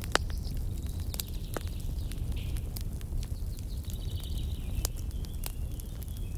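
Campfire crackling, with irregular sharp pops and snaps over a steady low rumble of wind.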